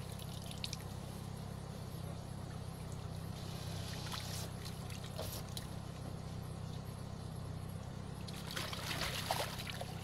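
Off-road vehicle wading through deep water: water sloshes and trickles against the body over a steady low engine drone. The water grows louder in two stretches, near the middle and near the end.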